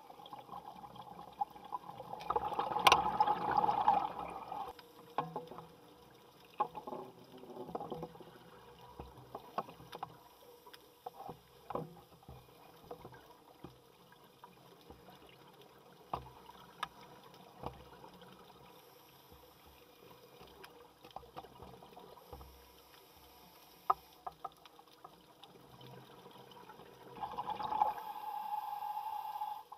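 Underwater ambience with scattered sharp clicks and pops, and two louder bursts of rushing, bubbling noise: one about two to four seconds in and one near the end.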